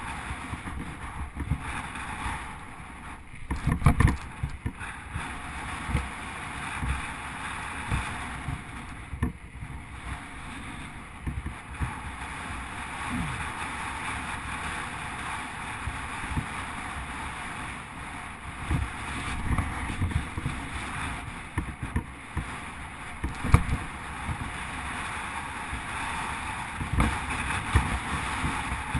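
Wind rushing over the microphone of a bike-mounted camera and the steady hiss of bicycle tyres on a tarmac lane, with scattered knocks from bumps in the road, the sharpest about four seconds in and again past twenty seconds.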